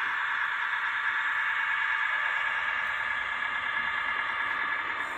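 H0-scale model diesel locomotive running slowly along the track, a steady thin hum with no bass.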